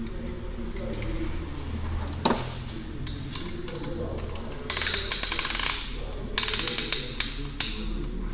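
Piston ring compressor being ratcheted tight around the oiled piston rings: two bursts of rapid metallic ratchet clicks, about a second each, after a single knock.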